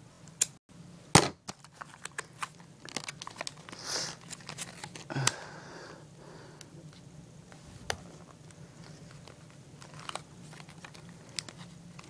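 Stiff plastic blister packaging crinkling and crackling as it is handled and pried at, with a string of sharp clicks, a few of them louder in the first half.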